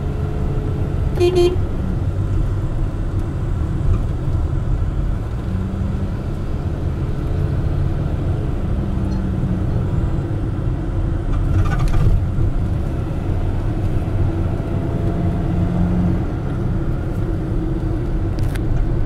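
Steady low rumble of a car driving, heard from inside the cabin, with a short horn toot about a second in.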